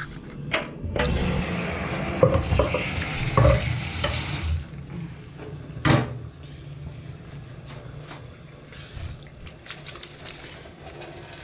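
Boiling water being poured off cooked beshbarmak noodles, a rush of splashing water for about three and a half seconds, with clanks of the metal pot. Quieter clinks and knocks of kitchenware follow.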